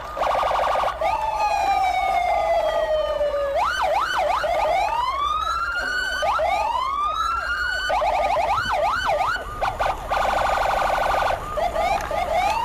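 Electronic siren sound cycling through patterns: a fast warble, a long falling sweep, then repeated rising and falling wails, with another fast warble about ten seconds in.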